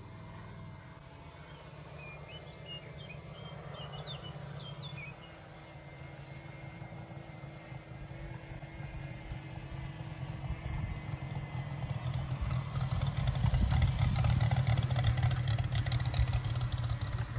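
Moki 400 radial engine of a half-scale Gee Bee R2 model aircraft, distant at first and growing steadily louder as the plane comes in low over the runway to land. A bird chirps a few times a few seconds in.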